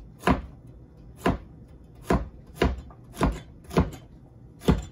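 Chinese cleaver chopping a shark fin squash on a cutting board: seven sharp chops, each blade stroke ending in a knock on the board, spaced about half a second to a second apart.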